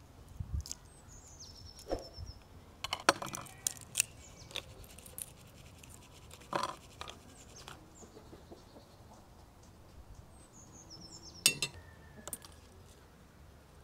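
A fine metal mesh sieve tapped and shaken as flour is sifted into a plastic tub, with scattered light clicks, clinks and knocks of kitchenware on a wooden table. A small bird chirps briefly twice in the background, about a second in and again near the end.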